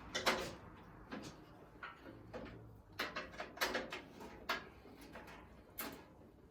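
Scattered light knocks and clunks, about six over a few seconds, from parts of the vehicle being handled as the hood comes off.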